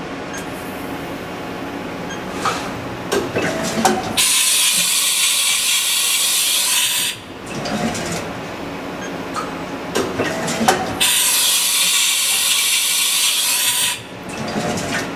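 Haas VF3's 20-pocket automatic tool changer cycling twice: clunks and clicks of the changer and spindle mechanism, each change with a loud hiss of compressed air lasting about three seconds as the spindle releases the tool.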